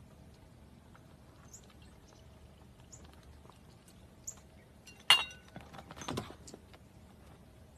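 A plastic cat flap knocks sharply about five seconds in and rattles again a second later as a mallard duck shoves through it. Before that there are only a few faint small clicks.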